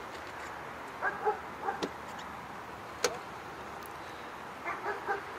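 A dog barking in short, quick barks: a few about a second in and another run near the end, with a single sharp click about three seconds in.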